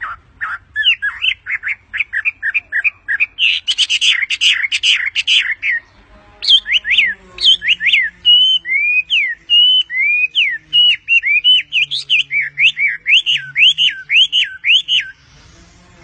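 Chinese hwamei (Garrulax canorus) singing. A fast run of short chirping notes lasts about six seconds. After a brief pause come loud, clear whistled notes sliding up and down, repeated many times and stopping about a second before the end.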